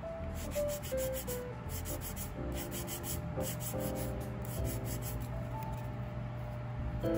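Nail file rasping against a plastic nail tip in a run of quick back-and-forth strokes, over soft background music carrying a slow melody.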